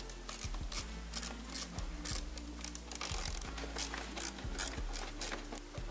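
A hand tool clicking and scraping irregularly as it works the metal hose clamp on an air-intake duct at the airbox, during an air-filter change.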